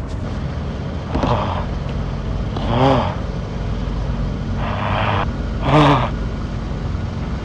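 A car engine idling with a steady low hum. Over it, a person gives four short, breathy huffs onto the car's window glass, fogging it.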